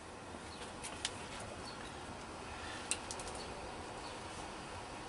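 Quiet outdoor background with a few light clicks from hand tools or parts being handled at a truck's leaf spring shackle: a single click about a second in, then a quick run of four or five clicks about three seconds in.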